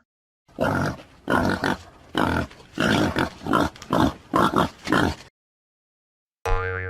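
Wild boar grunting and squealing in a quick series of about ten short, harsh calls, which stop about five seconds in.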